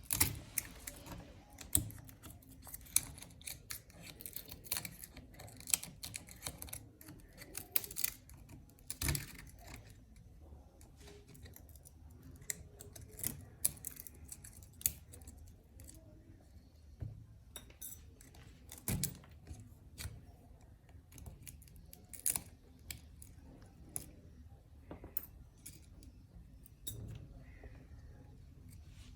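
Irregular sharp clicks and light taps from small hand tools working on a phone, coming several a second at first and sparser later.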